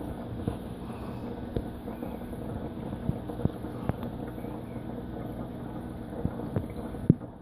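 Steady low mechanical hum of reef aquarium equipment, with scattered light clicks and a sharper click near the end.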